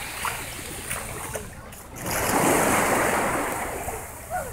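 Sea water washing in small waves at the shoreline, one swell of wash rising about two seconds in and then fading.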